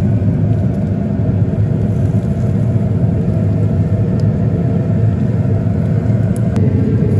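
Green Mountain pellet grill's fan running: a loud, steady low hum.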